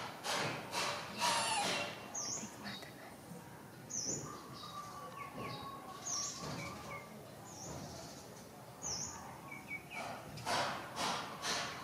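Small birds chirping outdoors: short, high, falling chirps repeated every second or so, with a few quick rustling bursts near the start and again near the end.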